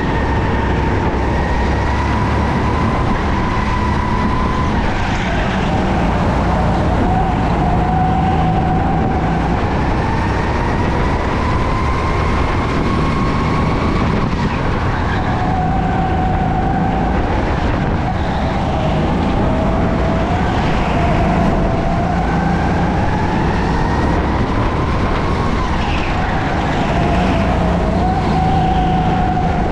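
Go-kart engine running hard, its pitch climbing slowly for several seconds as it accelerates and then dropping sharply as it slows, over and over.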